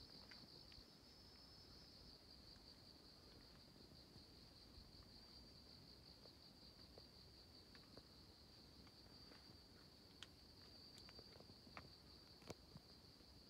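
Faint, steady high-pitched trilling of crickets or other singing insects. A second, slightly higher trill stops about two seconds in, and a few soft clicks sound near the end.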